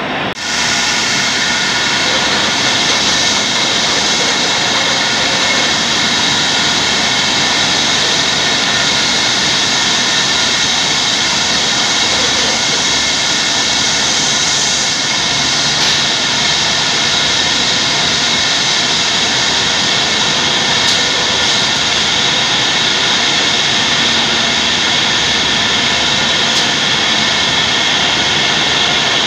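Steady din of a canning production line's machinery: a dense hiss with several steady whining tones over it, changing little throughout.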